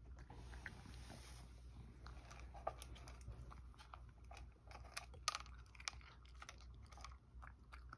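A cat chewing dry kibble from a bowl: faint, irregular crunches and clicks, with a sharper crunch about five seconds in.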